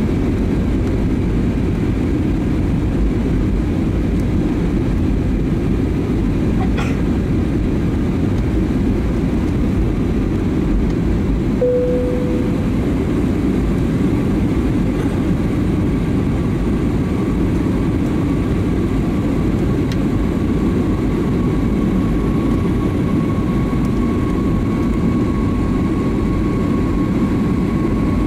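Steady low roar of an Airbus A320neo in flight, engines and airflow heard from inside the passenger cabin. A single short soft tone sounds near the middle, and a faint steady whine joins from about halfway through.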